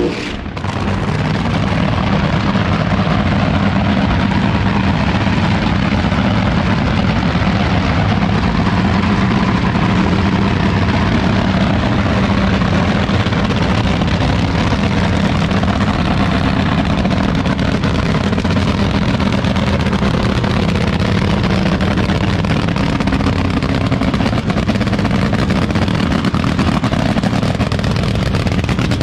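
Nitro funny car's supercharged nitromethane V8 idling loud and steady while the car is backed up toward the start line, with a brief drop in level about half a second in.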